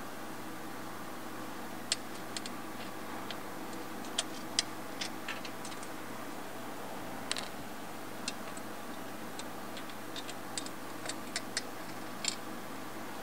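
Scattered light clicks and taps, irregular and a few to the second at most, as hands work the intercooler's metal mounting bracket and bolt hardware, over a steady background hum.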